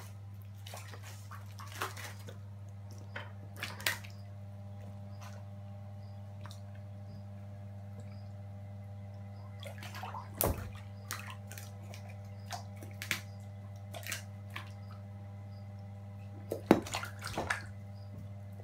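Water splashing and sloshing as Cuvier's dwarf caimans lunge at and seize chicken drumsticks at the surface, in a few short bursts with the biggest splash about ten seconds in and a cluster near the end. A steady low hum runs underneath.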